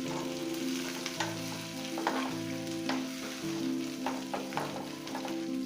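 Spice tempering in hot coconut oil (mustard seeds, crushed spices, dried red chillies and curry leaves) sizzling steadily as it is stirred in the pan, with scattered sharp clicks.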